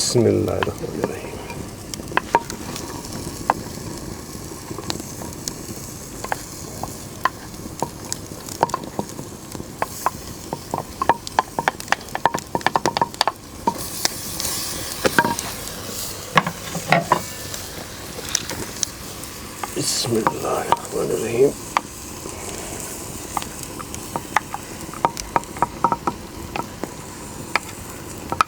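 Aubergine and courgette sizzling in oil in a clay pot, with a spoon scraping and knocking against the pot as they are stirred in; many short clicks over a steady sizzle.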